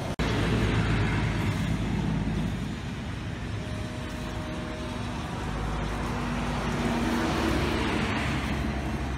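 A steady low outdoor rumble, with the dry rustle of lemongrass stalks being handled and pulled from the clump. The rustle swells near the start and again near the end.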